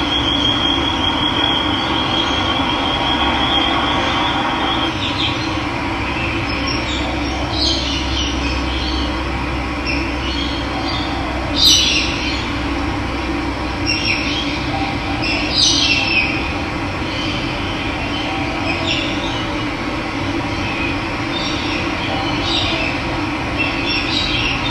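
Steady rushing of running water, with wild birds calling in short, sharp, high notes over it, most often in the middle of the stretch. A thin steady high tone sounds for the first few seconds.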